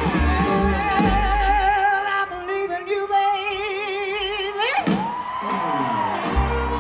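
Live blues band: a male lead voice holds long notes with a wide vibrato while the bass and band drop away, then slides up into a high held note. The full band comes back in near the end.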